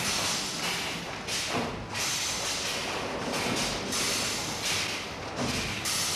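Factory assembly-hall noise: a steady, hissing din of machinery on a truck-cab assembly line, swelling and dipping every second or so.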